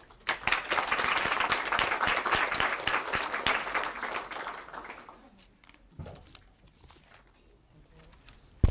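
A small seminar audience applauding the end of a talk, a dense patter of clapping that starts sharply and dies away after about five seconds. A few scattered clicks follow, and a single sharp knock comes at the very end.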